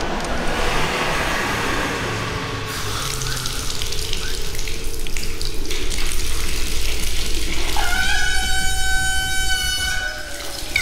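Water running from a brass tap into a ceramic sink. About eight seconds in, as the tap is turned, a loud steady whistle with several overtones starts: the tap and its pipe singing with the flow.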